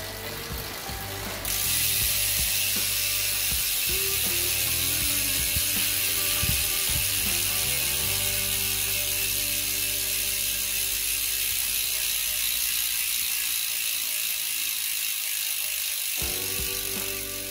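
Freehub of a Crankbrothers Cobalt 3 rear wheel ticking as the wheel coasts freely, the pawl clicks so fast that they run together into a loud, steady, high-pitched rattle. It starts about a second and a half in and fades near the end.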